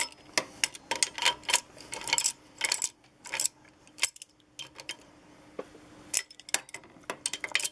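A metal wrench clinking against the nuts and mounting bracket of an industrial sewing machine's clutch motor as the mounting nuts are tightened. It is a run of sharp, irregular metallic clicks, with a sparser, quieter stretch about halfway through.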